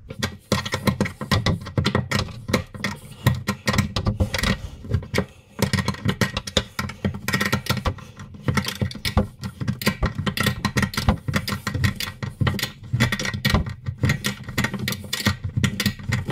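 A 10 mm open-ended spanner tightening the nut on a worktop connector bolt, clinking and clicking on the metal over and over as it is turned a little, taken off and refitted.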